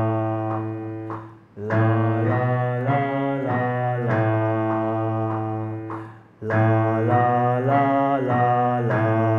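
Male voice singing a fast three-note vocal warm-up on 'la la la la la', stepping up and back down, over steady backing chords. The phrases repeat with short breath pauses about one and a half and six seconds in.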